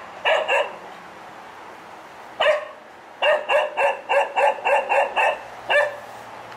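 Young male Cocker Spaniel barking repeatedly: two barks at the start, a single bark a couple of seconds later, then a quick run of about eight barks at roughly four a second and one more near the end. It is mindless over-excited barking, not aimed at anything.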